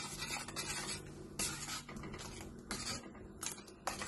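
A steel ladle stirring thickened soup in a stainless steel pot, scraping and clinking against the metal in a run of short, uneven strokes.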